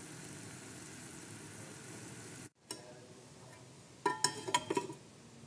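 A steady faint hiss, then a quick run of sharp, ringing metallic clinks about four seconds in: a lid being set onto a steel pot to cover the just-boiled coffee.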